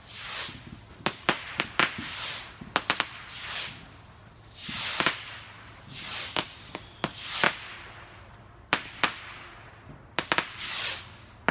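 Consumer fireworks going off in a rapid series. Soft hissing whooshes rise and fade about every second or two as shots launch, quiet going up like a whisper. Clusters of sharp cracks and pops from the bursts fall between the whooshes.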